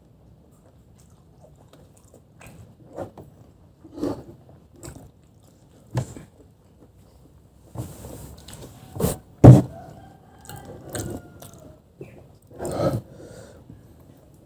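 Close-miked eating sounds from a mouthful of spicy noodles: chewing, with scattered wet smacks and clicks that come more often in the second half, the loudest about halfway through.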